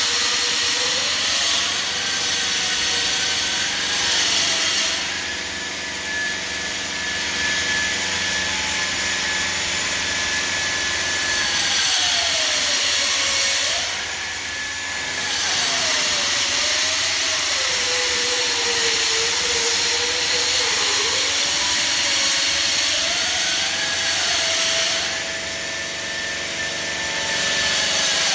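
Denver 5-axis CNC bridge saw cutting 20 mm black granite: a steady grinding hiss with a whining tone that slowly rises and falls as the blade works along the curve.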